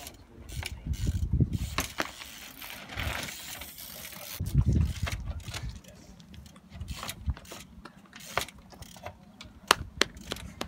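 Trials bike hopping and balancing on rocks: irregular sharp clicks from the freewheel ratcheting and the bike knocking on stone, with a couple of heavier thuds as the tyres land.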